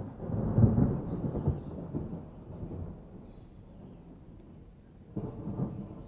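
Thunderstorm: a deep roll of thunder swells about half a second in, rumbles on for a couple of seconds and dies away over the rain, then a second rumble starts near the end.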